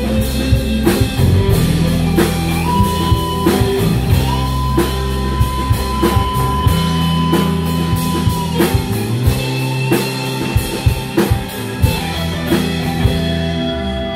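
Live rock band playing an instrumental passage: drum kit keeping a steady beat under guitars, bass and keyboard, with a lead line that slides up to long held notes.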